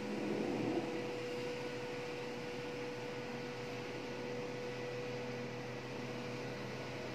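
Rope-driven home lift running in its shaft: a steady electric hum with one constant tone over a soft hiss. A brief louder rustle comes in the first second.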